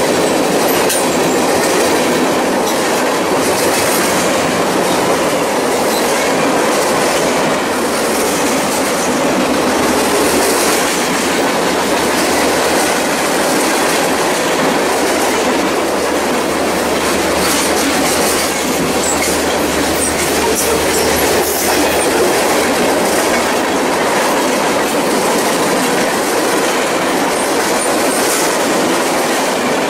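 Freight cars rolling past close by, a steady loud rumble of steel wheels on rail with clicking as the wheels cross rail joints.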